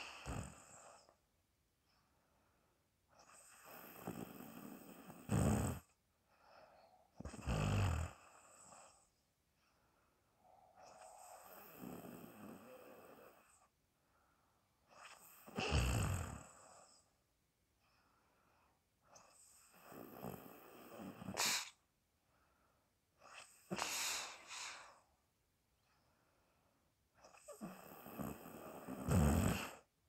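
People snoring in their sleep: about seven snores, one every three to four seconds, several swelling to a louder, deeper end, with quiet between breaths.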